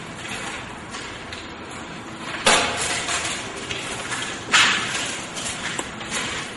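Two sharp knocks about two seconds apart, each ringing briefly in an empty, bare-walled room, over a steady hiss of background noise.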